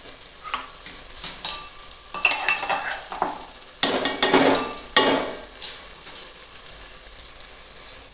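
A steel ladle stirring chopped brinjal, tomato and chilli in a steel pot on a gas burner: a run of uneven scraping strokes with metal clinks against the pot, over a light sizzle.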